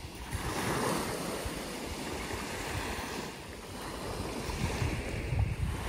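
Small waves lapping and washing onto a sandy lake shore, with wind rumbling on the microphone.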